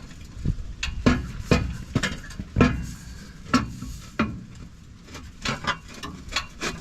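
Irregular metallic knocks and clanks of 3.5 inch exhaust pipe sections being worked together as the final piece is pushed over the joint. About a dozen uneven strikes, the loudest about one and two and a half seconds in.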